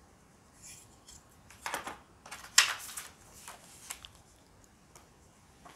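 Handling noises: a scatter of short rustles and light knocks from a plastic laser level and its case being handled and a paper instruction booklet being picked up. The sharpest knock comes about two and a half seconds in.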